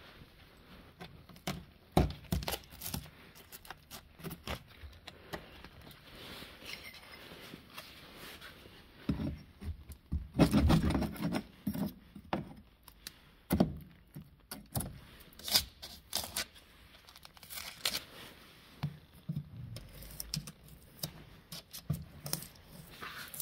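A flat steel scraper blade scraping and chipping old underbody coating and rust off a 1990 Ford Sierra's underside, with irregular sharp clicks and knocks as flakes break away and a longer, louder scrape about ten seconds in.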